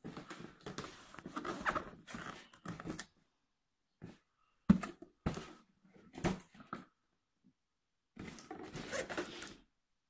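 A cardboard box being handled and turned around: irregular rustling and scraping, with a sharp knock about five seconds in.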